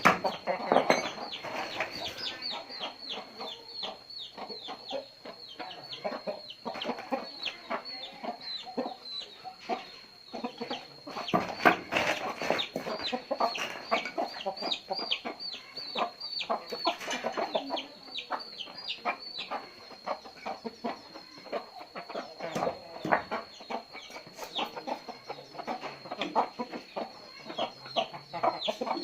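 Chickens clucking and calling, a dense run of short quick calls that swells and eases off, over a thin steady high whine.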